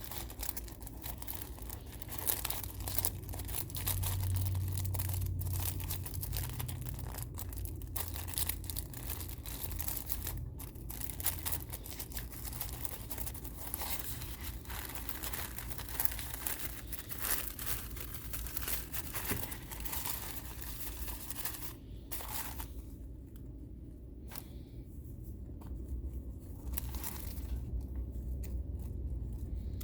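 Paper packaging crinkling and rustling as it is unwrapped by hand, dense and busy for most of the time, then sparser and quieter near the end.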